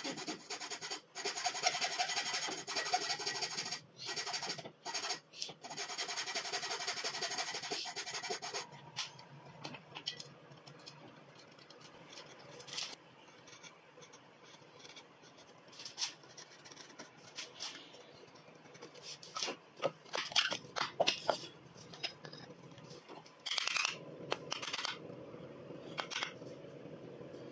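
Backsaw sawing into a hardwood plane body with steady back-and-forth strokes and a few short pauses. It stops about eight seconds in. After that comes quieter chisel paring: scraping with scattered short, sharp cuts.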